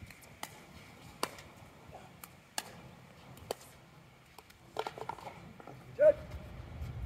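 Pickleball paddles hitting a hard plastic pickleball in a doubles rally: sharp pops about a second apart, then a quick flurry of hits about five seconds in. A brief loud shout follows near the end as the point finishes.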